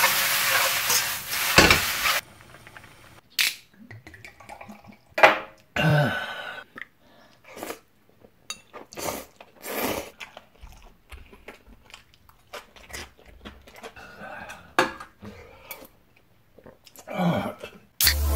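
Vegetables and seafood sizzling as they are stir-fried in a wok over a gas flame, with a clank of the tongs against the pan, for about two seconds. Then scattered clinks of bowls and cutlery and eating sounds.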